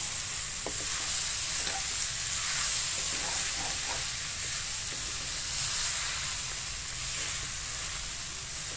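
Soaked sago pearls and boiled potato sizzling in a kadai with a steady hiss, stirred with a wooden spatula that scrapes and lightly taps the pan a few times.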